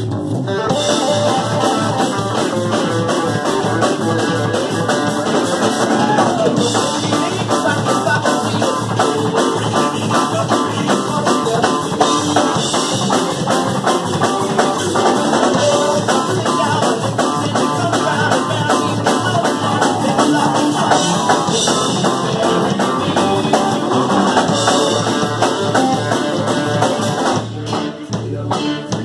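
Live band playing thrash-grass, a mix of thrash metal and bluegrass, on electric guitar, acoustic guitar, bass and drum kit. The playing is loud and continuous, with a short drop near the end.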